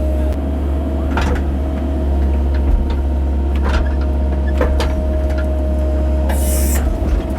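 Cat 308 mini excavator's diesel engine running under working load, a heavy low drone with a steady whine above it. Several sharp knocks and clunks come through as the machine works, and a brief hiss about six seconds in.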